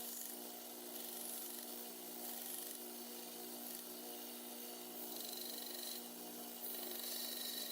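Faint, uneven sanding strokes on a pocket knife's handle scales, over a steady low electrical hum.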